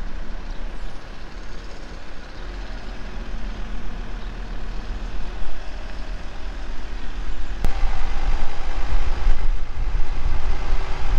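Low rumble of a van driving slowly, its engine and tyres on the road. A sharp click comes about seven and a half seconds in, and the rumble is louder after it.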